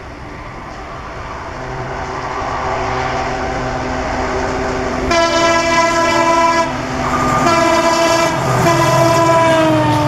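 WDG4 (EMD GT46MAC) diesel locomotive hauling a passenger train, its engine and wheels growing steadily louder as it approaches. About halfway through, its horn sounds a chord of several tones in repeated blasts, the last one dropping in pitch as the locomotive passes.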